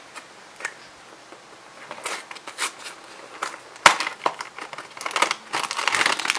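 Small cardboard blind box being torn open by hand: a few light clicks at first, then crackling and tearing, with one sharp snap about four seconds in. Near the end comes dense crinkling as the foil bag inside is pulled out and handled.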